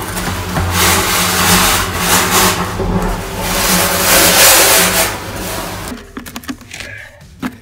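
Septic pump truck running: a steady low engine hum with a loud rushing hiss that swells and fades several times, dropping away about six seconds in.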